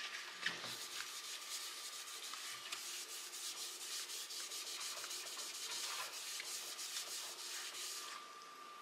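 Soft sponge scrubber rubbing the inside of a stainless steel pot in quick back-and-forth strokes, stopping near the end.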